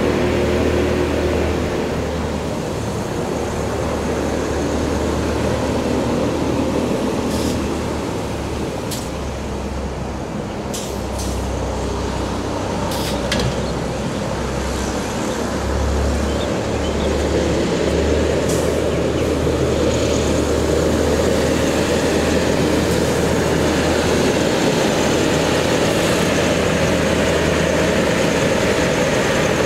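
Mercedes-Benz MBE900 diesel water truck running while its PTO pump sprays water from the spray heads, a steady engine drone under a rushing spray hiss. It grows louder in the second half as the truck comes closer.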